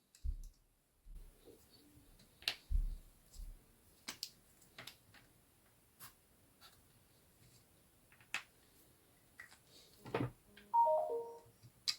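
Scattered small clicks and taps of chips being handled and swapped at a chip tester, then near the end a quick falling run of four or five short electronic beeps.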